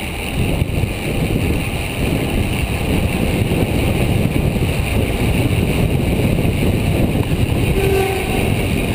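Steady wind rush and buffeting on the microphone of a camera riding along on a moving road bicycle.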